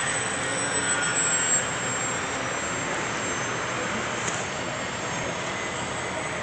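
Scratch-built foam RC airplane in flight, its motor and propeller giving a steady high whine over a broad hiss, with the pitch shifting slightly early on as the plane passes.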